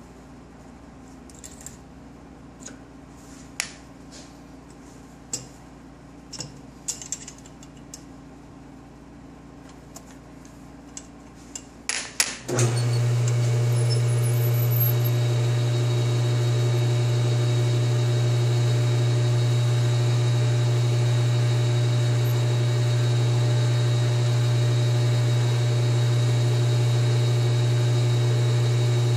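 Scattered light metal clicks and clinks as a chamber reamer is set into a rifle barrel's bore. About twelve seconds in, a metal lathe's motor starts suddenly and runs with a loud steady hum, turning the barrel for a reaming pass.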